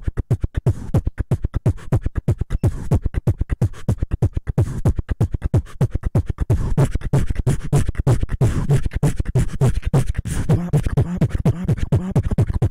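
Beatboxing into a handheld microphone: a fast, unbroken run of mouth-made percussion with heavy deep kicks. A buzzing pitched bass line joins near the end.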